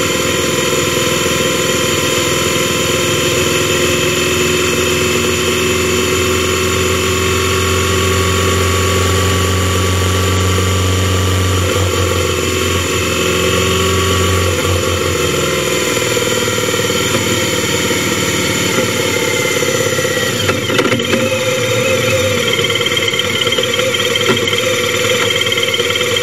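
Motorcycle engine running under way, its pitch easing down about halfway through as the bike slows, then running more lightly while stopped, with a few clunks about three-quarters of the way in.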